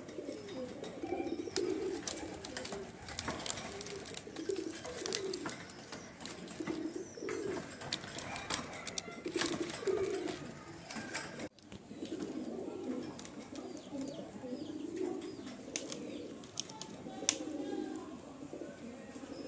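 Domestic tumbler pigeons cooing, low repeated coos every second or so, with scattered sharp clicks.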